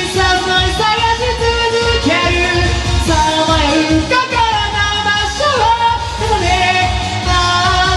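A man singing into a karaoke microphone over a J-pop karaoke backing track, the song taken two semitones below its original key.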